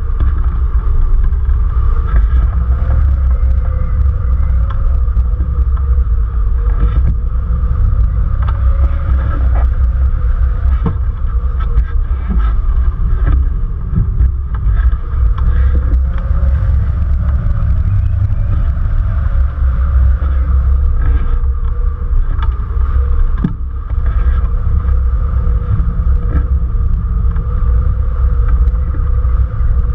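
Loud, steady rush of air buffeting a wing-mounted camera's microphone on a hang glider in gliding flight, heard mostly as a deep rumble.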